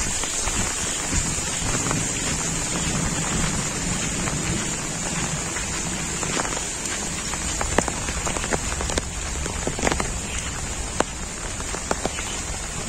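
Heavy monsoon rain falling in a steady hiss, with close drops tapping sharply every now and then.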